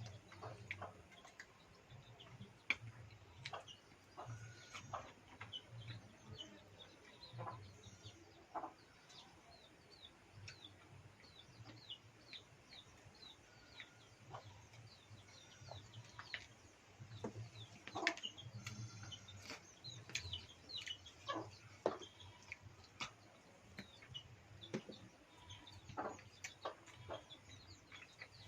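Chickens clucking now and then, with many short high chirps scattered throughout and a few louder calls.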